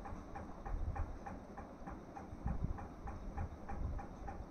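Steady, evenly spaced ticking, about four to five ticks a second, with a low thump about two and a half seconds in.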